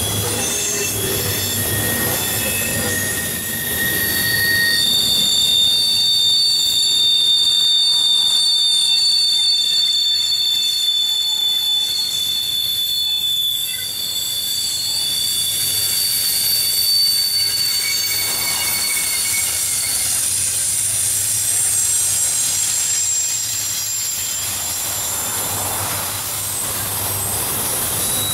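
Intermodal freight cars (double-stack container well cars and trailer flatcars) rolling past, their steel wheels squealing in several long, steady high-pitched tones over the continuous rumble of the train.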